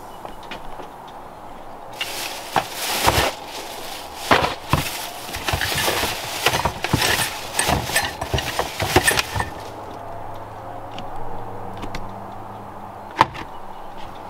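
Plastic shopping bags rustling and crinkling as bottles and boxes are pulled out of them, starting about two seconds in and lasting about seven seconds. After that a low steady hum and a single knock near the end.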